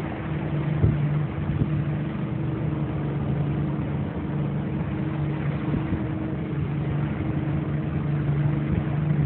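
Motorboat engine idling with a steady, even hum.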